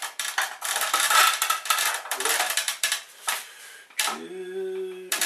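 Metal parts being handled and pulled from a printer being stripped: dense clinking, scraping and rattling with sharp clicks. About four seconds in it gives way to a brief low, steady hum-like tone.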